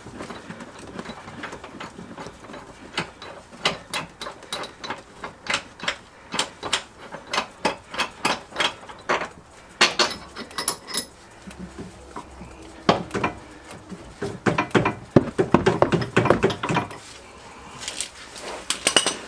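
Hand tools working on the metal parts of a car's rear suspension while a trailing arm is taken off: a run of regular clicks, about two a second, then a cluster of louder metallic knocks near the end.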